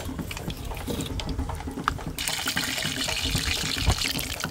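Corn-dough cheese empanadas deep-frying in hot oil: a steady sizzle with scattered small pops, the hiss growing stronger about two seconds in.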